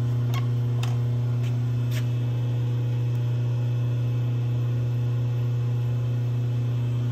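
Roper Whitney CNC folding machine standing idle with its power on, giving a steady low electrical hum, with a few faint clicks in the first two seconds.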